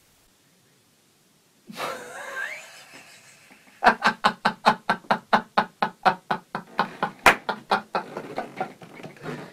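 A man's loud, rhythmic laughter, about four or five 'ha's a second, after a short rising cry. A single sharp slap sounds about seven seconds in.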